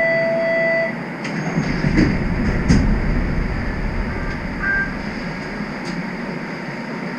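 Interior of a standing Toronto streetcar: the steady hum of its onboard equipment and ventilation, with a short electronic beep at the start and a few sharp clicks and knocks about two and three seconds in.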